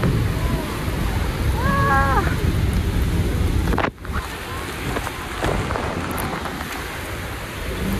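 Roar of heavy spray from Niagara's Horseshoe Falls with wind blasting the microphone, and a person's brief shout about two seconds in. Just before the halfway point the sound drops suddenly and goes on at a lower level.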